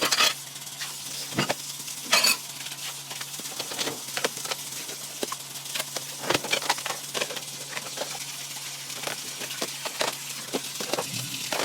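Crackly rustling with many small knocks and clicks throughout, as kitchen items and packaging are handled, over a faint steady hum.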